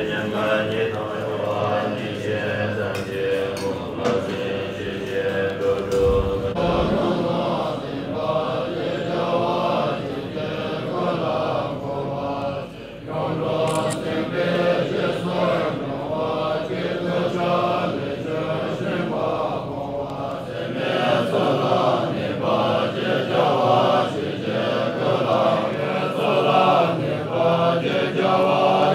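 A group of Bon monks chanting their prayer texts together, a continuous recitation of many men's voices with a brief dip about 13 seconds in.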